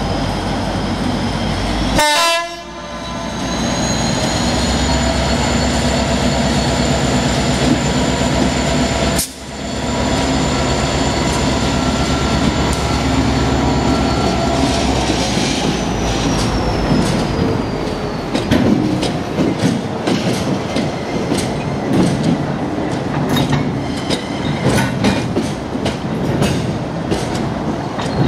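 Class 59 diesel locomotive's two-stroke EMD V16 engine running under power with a high turbocharger whine as it passes, the whine falling away after about fifteen seconds. Loaded hopper wagons then clatter over the rail joints in an uneven run of clicks and knocks. There is a brief sharp noise about two seconds in.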